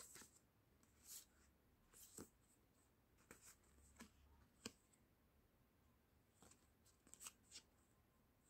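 Faint rustling and clicking of stiff printed cards being leafed through and handled, in short scattered bursts.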